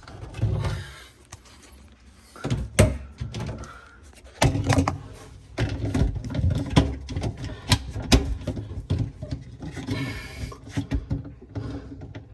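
Parts of a KitchenAid dishwasher being handled and snapped back into their clips: irregular clicks, knocks and rattles, with a sharp knock about three seconds in and a busier run of them from about four seconds on.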